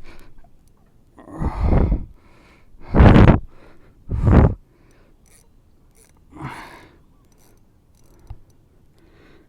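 A man's heavy breathing as he strains against a big fish on the rod: three loud gasping breaths in the first half, then a weaker one, close on the microphone.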